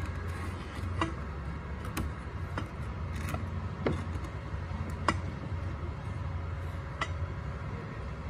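Thin steel pipes clinking and knocking against each other as they are handled and fitted together for a joint: about seven sharp metallic taps, spread irregularly over a steady low rumble.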